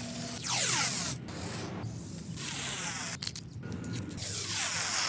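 Blue masking tape being pulled off its roll in several long rasping rips, with short pauses between them.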